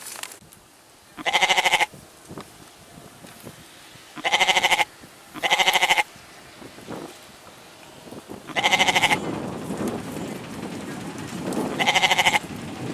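Domestic goats bleating: five loud, quavering calls, each about half a second long, spaced one to three seconds apart.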